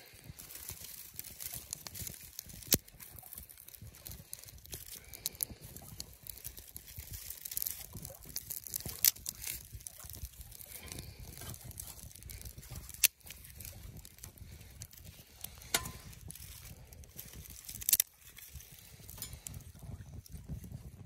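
Small wood fire of feather-stick shavings crackling as it catches in a folding metal wood stove, with several sharp louder pops scattered through.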